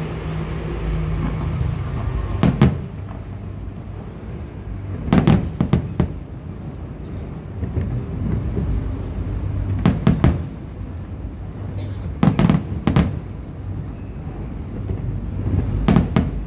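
Aerial fireworks bursting in a display: clusters of sharp bangs come about every two to four seconds, five groups in all, over a steady low background rumble.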